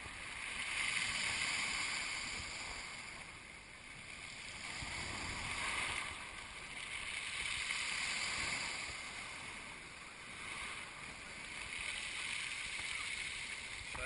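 Sea surf breaking and washing over a pebble shore, a steady rush of water that swells and eases every few seconds as waves come in.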